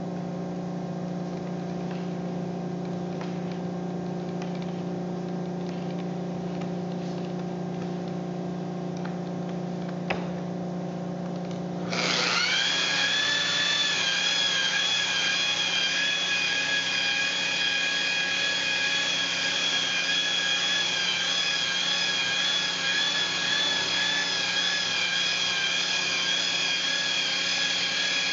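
Makita electric rotary polisher with a wool pad running steadily, buffing compound into a solid surface countertop to a gloss. About twelve seconds in, the sound jumps abruptly to a louder, higher whine, which rises briefly and then holds steady.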